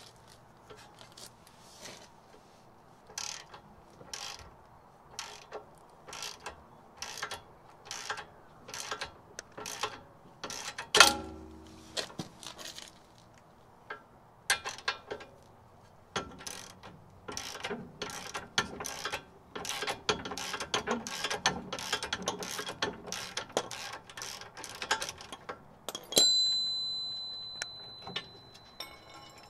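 Socket ratchet wrench clicking in repeated strokes as a bolt is turned, with one loud knock about a third of the way in. Near the end a metallic clang rings on at a steady high pitch for a few seconds.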